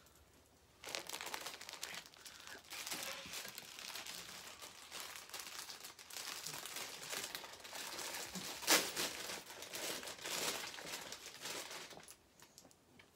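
Plastic packaging crinkling and crackling as a wrapped item is pulled out of a box and handled, starting about a second in and stopping shortly before the end, with one sharper, louder crackle a little past the middle.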